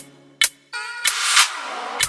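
Background music in a break: the beat drops out, a single sharp hit sounds about half a second in, then a swelling swept noise builds until the beat comes back.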